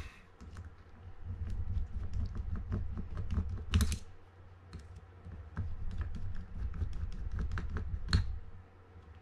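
Small screwdriver working the drag-plate screws of a Penn Clash 8000 spinning reel: a run of light, irregular metal clicks and taps over low handling bumps, with two sharper clicks about four and eight seconds in.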